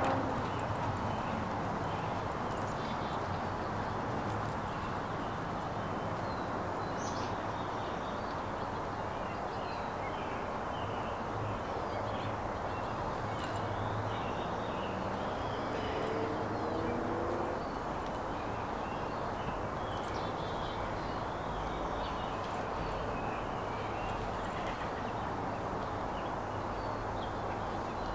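Outdoor ambience: a steady low background rush with scattered bird chirps, and a brief rising tone about halfway through.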